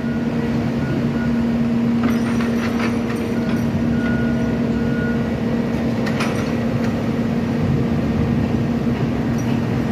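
Railroad track maintenance machine running steadily, a diesel-style hum with a constant pitch, with a few short clanks about two, three and six seconds in.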